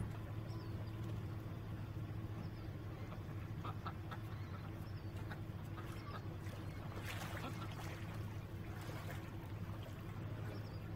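Johnson 20 hp two-cylinder two-stroke outboard idling steadily, with a low, even hum and water stirring around its leg.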